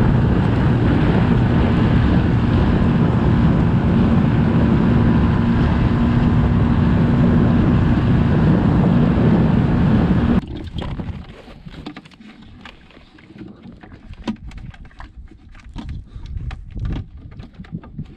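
Inflatable boat under way: a loud, steady rush of wind on the microphone, water off the hull and motor noise, which cuts off abruptly about ten seconds in. After that come scattered light clicks and knocks of gear being handled.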